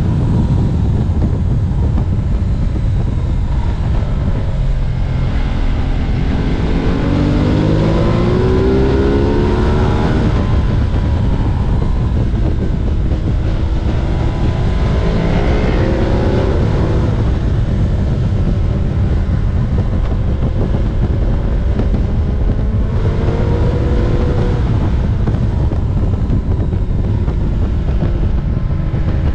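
Ducati Multistrada 1260 Pikes Peak's V-twin engine running under a heavy rush of wind on the microphone, rising in pitch three times as the bike accelerates out of curves.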